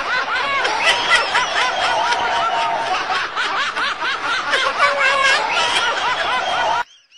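High-pitched snickering laughter, a rapid string of short rising-and-falling giggles, cutting off abruptly near the end.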